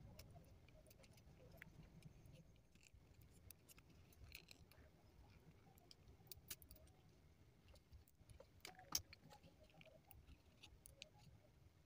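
Near silence with faint scattered clicks and small scrapes, the loudest about nine seconds in: a small screwdriver prying a glued rubber end cap off the plastic arm of a Level U-style Bluetooth neckband.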